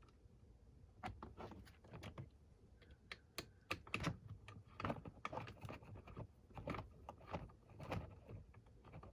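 Irregular small clicks and taps of hands handling the Profoto B10's tilt knob and bracket hardware, starting about a second in.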